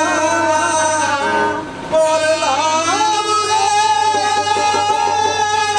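Live jatra music: one ornamented melody that slides between notes, breaks briefly about two seconds in, then settles into long held notes, over a steady low hum.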